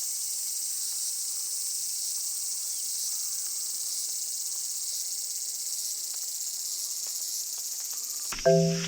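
Steady high-pitched chorus of insects droning, with faint bird chirps; marimba music starts near the end.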